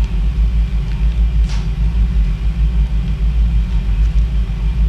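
Steady low rumble of background noise in the operating room, with a brief hiss about a second and a half in.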